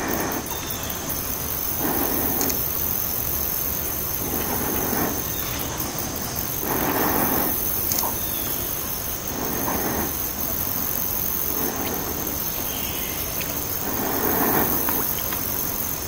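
Outdoor wetland ambience: a steady high-pitched insect drone, with a short noisy swell coming back about every two and a half seconds.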